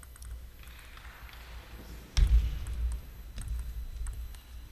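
Table tennis ball clicking sharply off the rackets and the table during a rally, several light strikes in a few seconds. A heavy thump about two seconds in is the loudest sound.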